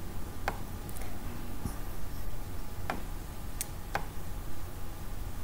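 A few scattered computer mouse clicks, about four, over a steady low hum.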